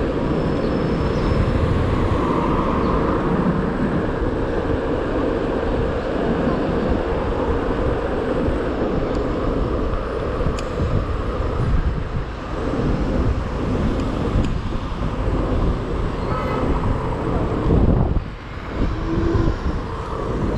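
Riding noise on a Xiaomi Mi 1S electric scooter: steady wind rush on the microphone over road and tyre rumble, with traffic around. The noise eases briefly near the end.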